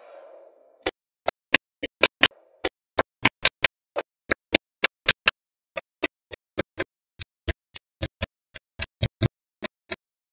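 Small magnetic balls snapping one by one onto a wall of magnet balls: about 33 sharp, separate clicks at an uneven pace of three to four a second. A short swish comes just before the first click.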